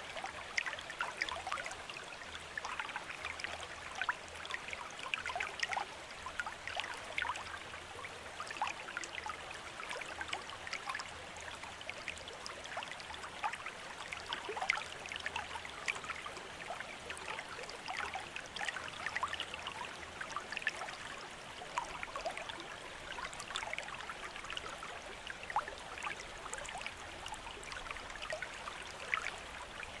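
Water from a bamboo fountain trickling and splashing steadily, full of small dripping and splashing sounds.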